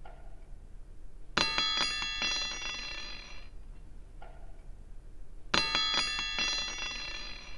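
A small metal bell rung twice, about four seconds apart, each time a quick run of several strikes that ring out and fade over about two seconds.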